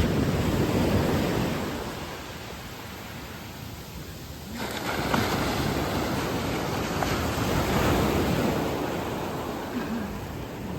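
Ocean waves breaking and washing up the beach in two surges. The first fades away within about two seconds; the next wave breaks suddenly about four and a half seconds in and rushes on for several seconds before easing.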